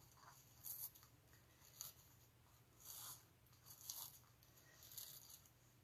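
Faint, brief rustles of sheer ribbon and cardstock being handled, about one a second, over near silence.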